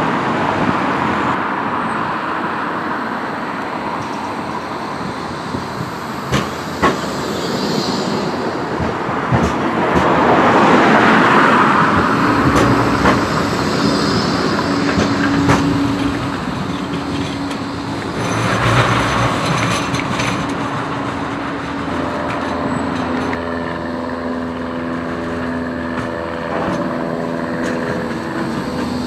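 Traffic noise as a car passes, then a Bombardier Flexity 2 tram of the Blackpool system running at a tram stop. Its drive gives a steady low hum from about halfway through, and several higher whining tones join it near the end.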